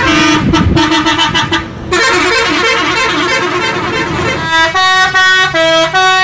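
Indonesian tour buses' multi-tone musical air horns ('telolet' horns) sounding. In the second half one horn plays a quick tune of short notes, each at a different pitch.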